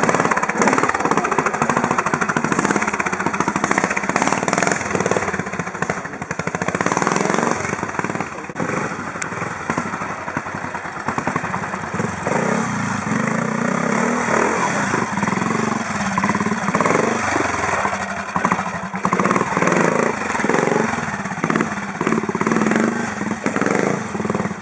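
Classic trials motorcycle engines revving up and down as the bikes are ridden slowly over rocks, with short bursts of throttle.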